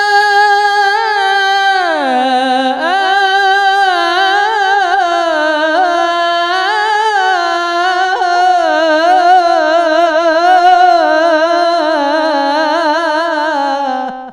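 A male munshid singing an unaccompanied Islamic inshad: one long melismatic vowel held without a break, ornamented with fast wavering turns in pitch. The line dips low about two seconds in, then climbs back and winds on until it tails off near the end.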